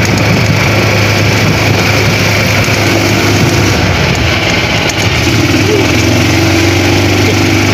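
Small gasoline engine of a golf cart running steadily as the cart drives along, a constant low hum with road noise.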